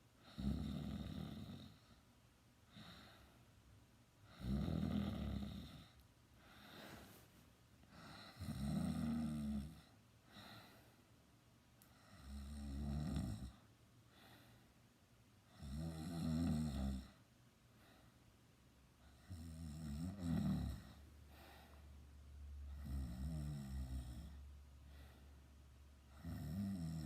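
A sleeping teenager snoring: a low, fluttering snore about every three and a half to four seconds, each lasting about a second, with softer breaths between.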